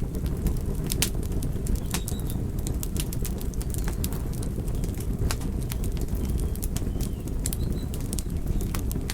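Wood logs burning in a fireplace, crackling and popping with frequent sharp, irregular pops over a steady low rumble of the fire.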